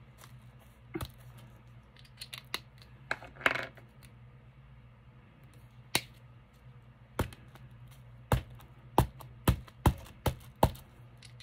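Small plastic rubber stamps being pressed onto tissue paper and set down on a cutting mat: scattered sharp taps and clicks that come thicker in the second half, with a brief paper rustle about three seconds in.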